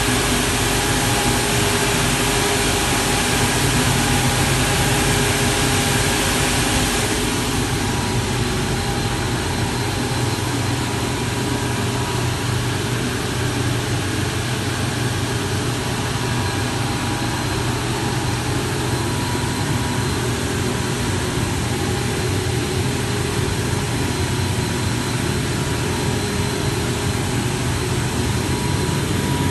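Timesaver wide-belt grinding and deburring machine running: a steady machine hum with several fixed tones and a broad hiss. The hiss drops noticeably about seven seconds in.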